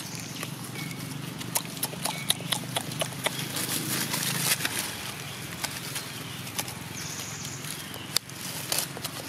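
Dry leaf litter crackling and rustling as macaques move and handle dry leaves, with many irregular sharp clicks, densest in the first few seconds.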